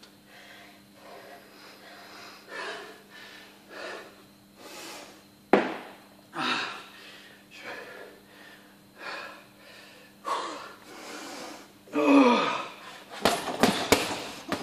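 Man panting hard, a heavy breath about once a second, as he recovers after a round on the heavy bag. Near the end, a quick run of gloved punches thuds into the bag.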